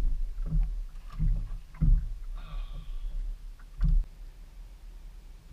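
Handling noise on a fishing boat: four dull thumps and knocks, with a brief higher squeak near the middle.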